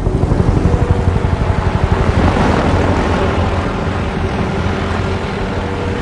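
Helicopter approaching, its rotor blades beating fast over a steady engine whine.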